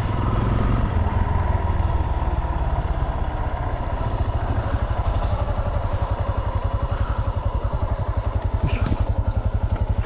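Yamaha Serow's single-cylinder four-stroke engine running as the bike rolls to a stop, then idling with an even, rapid putting beat from about four seconds in.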